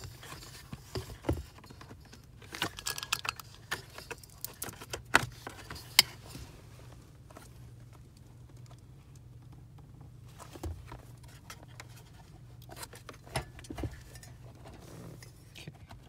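Scattered clicks, taps and rustling of a shift boot being worked by hand down around a manual shifter lever and into the plastic center-console trim. The sharpest clicks come about five and six seconds in, with a quieter stretch in the middle.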